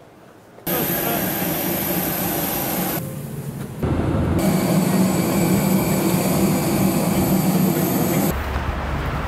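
Jet airliner engine noise heard from the passenger cabin: a steady rush with a low hum. It dips briefly about three seconds in, comes back louder about a second later, and gives way to a low rumble near the end.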